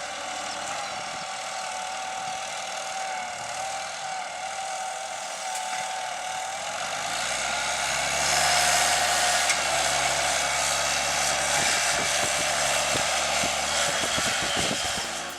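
Fendt 820 Vario tractor's six-cylinder diesel engine running steadily under ploughing load, with a wavering whine over it. About halfway through it grows louder and deeper as the tractor comes closer.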